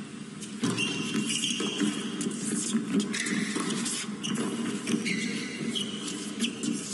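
Tennis rally on a hard court: racket strikes on the ball and several short, high sneaker squeaks as the players move.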